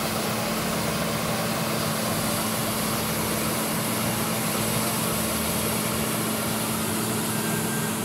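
John Deere combine harvester running at a steady hum while its unloading auger empties wheat into a grain trailer.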